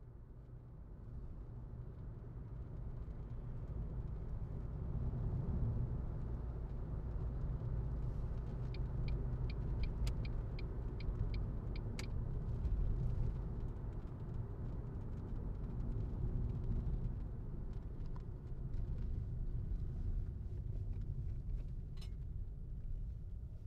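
Car engine and road rumble heard from inside the cabin as the car pulls away slowly and drives along a lane. The rumble grows over the first few seconds and then holds steady, with a quick run of light ticks, about four a second, around the middle.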